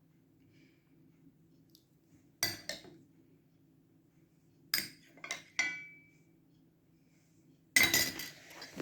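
A spoon clinking against dishes in a few separate strikes, one ringing briefly, then a busier run of clatter near the end.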